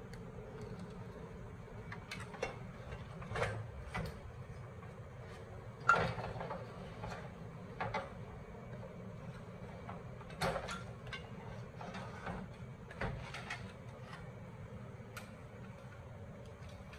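Scattered clicks and knocks from the parts of an old CRT television being handled as it is taken apart, the sharpest about six seconds in, over a steady low hum.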